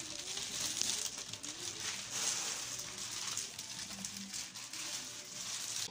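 Clear plastic packaging bag crinkling and rustling steadily as hands pull it off a new printer, stopping abruptly at the end.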